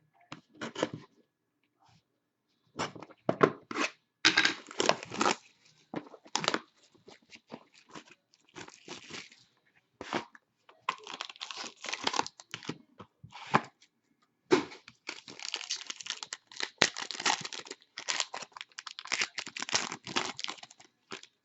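Sealed packaging of a hockey card box being torn open: plastic wrap ripped and crinkled in irregular bursts, with pauses between.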